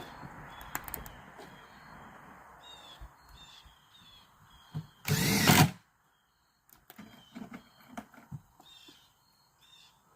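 Birds chirping in short repeated calls. About five seconds in there is a loud half-second burst of noise, followed by a few scattered clicks.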